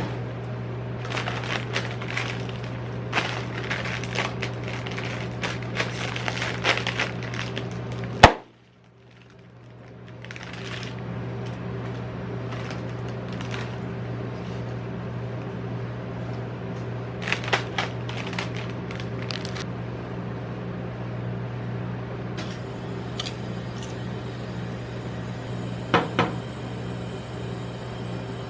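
Metal spatulas scraping and tapping on a rolled ice cream freezing plate, over a steady low hum. A sharp click about eight seconds in, after which the sound drops away for a moment and fades back in.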